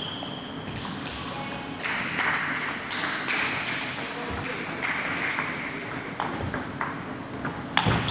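Table tennis rally: the ball clicking sharply off the bats and table at irregular intervals, the loudest hit near the end. A thin high squeak sounds at the start and again over the last two seconds.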